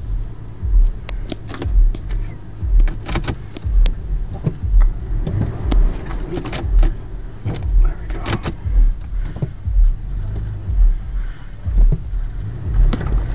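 Cabin sound of a Toyota FJ crawling over a rough dirt trail: a low engine rumble, deep thumps about once a second, and sharp knocks and rattles from the body as it lurches over bumps.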